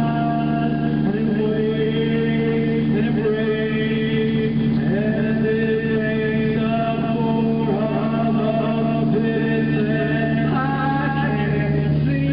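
Music: a man singing long held notes over a steady low accompaniment.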